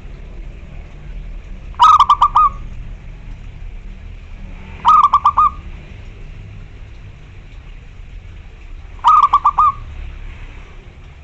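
Zebra dove (local perkutut) cooing three times, a few seconds apart; each call is a quick run of four or five rounded notes lasting under a second. A low steady rumble runs underneath.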